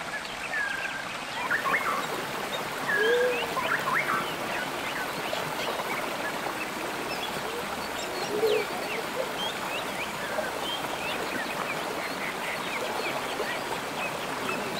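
Shallow stream running over rocks, a steady rush of water, with small birds chirping throughout. A few brief louder sounds come about two to four seconds in.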